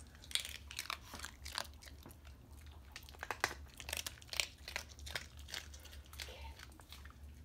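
Dogs chewing crunchy food: an irregular run of crisp crunches and bites.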